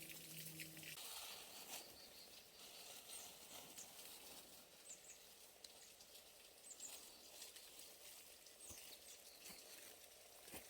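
Near silence: quiet rural outdoor ambience with a few faint, short, high bird chirps and small scattered ticks. A low steady hum cuts off about a second in.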